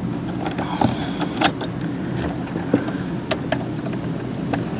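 Jeep Wrangler's starter cranking the engine steadily for several seconds, with a few clicks on top. The starter relay is being energized directly through a test light from battery positive, which shows that the circuit from the relay to the starter is good.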